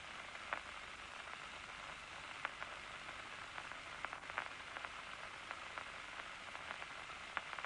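Amplified electrical activity of a locust's nerve cord played through a loudspeaker: a steady hiss with scattered, irregular faint clicks. This is the resting state, with the eye unstimulated and no large nerve-impulse spikes.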